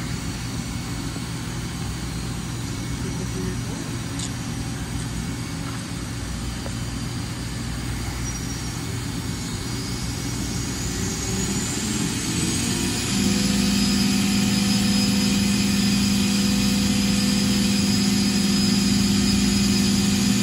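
Kitamura 4XT five-axis vertical machining center running with a steady hum. About halfway through, a whine rises in pitch over a few seconds, then a louder steady drone sets in and holds.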